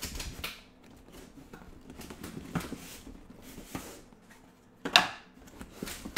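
Cardboard packaging insert being handled and worked loose in its box, giving scattered rustles and scrapes, with one loud, brief scrape about five seconds in.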